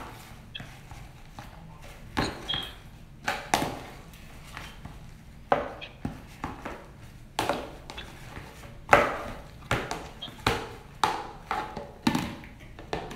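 A utensil stirring thick fluffy slime in a plastic tub, knocking and scraping against the plastic in irregular sharp knocks every half second to a second. The loudest knock is about nine seconds in.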